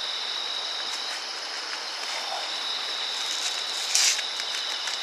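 Steady, high-pitched chorus of night insects such as crickets, over a constant hiss. A short hissing burst about four seconds in.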